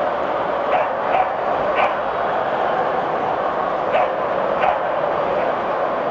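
Dogs barking in five short, sharp barks, two or three close together near the start and two more about four seconds in, over the steady hubbub of a busy exhibition hall.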